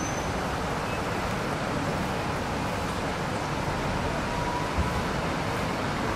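Steady background noise of distant road traffic, an even hiss-like rumble with no clear tone. A short high chirp sounds right at the start, and a soft low knock comes about five seconds in.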